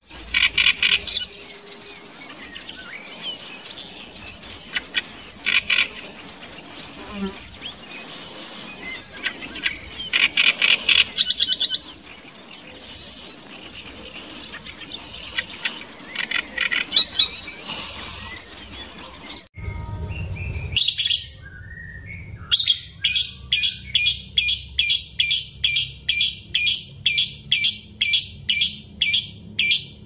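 A great reed warbler singing in short bursts of phrases over a steady high-pitched hum. Partway through the sound cuts to a masked lovebird giving a regular string of high chirps, about two a second.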